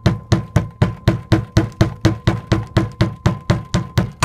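Hammer blows on a steel drift, driving a wheel bearing race into the hub of a VW T3 Vanagon brake disc: steady, even taps at about four a second, each with a short metallic ring.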